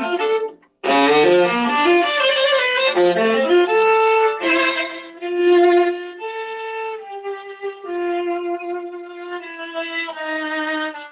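Viola played solo through a crunchy-sounding microphone: a quick passage of short notes with a brief break just under a second in, then slower, held notes in the second half.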